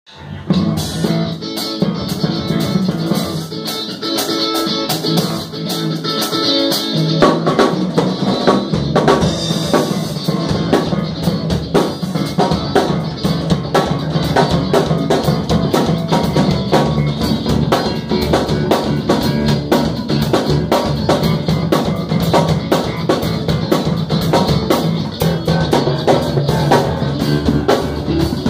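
Live rock jam on drum kit, electric guitar and electric bass, played together as an improvisation. The playing fills out about seven seconds in, with a stronger bass line and busier drumming.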